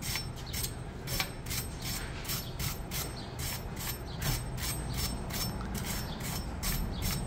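A hand brush scrubbing a rusty brake part that has been sprayed with brake cleaner, in quick even strokes about three a second.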